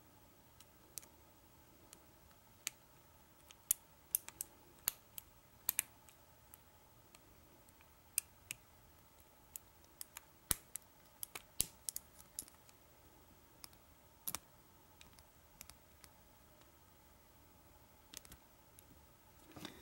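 Lock pick working the sliders inside a Kwikset Smartkey padlock's core during single pin picking: light, irregular clicks, sometimes in quick pairs, as the pick and tension tool set the sliders one by one.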